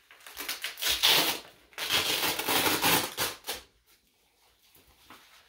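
Velcro fastening of a manual blood pressure cuff being torn open, in two long crackly rips over the first three and a half seconds.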